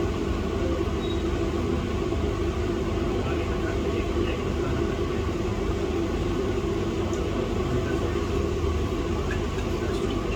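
Steady whirring blower noise that does not change, with a few faint small clicks near the end.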